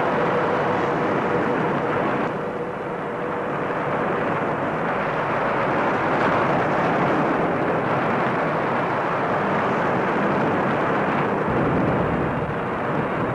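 River rapids rushing, a steady dense noise of churning whitewater that dips slightly about two seconds in.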